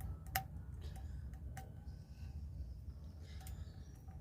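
Scattered faint clicks and small taps from a jar and its plastic seal being handled and picked at while it is opened, over a low steady hum.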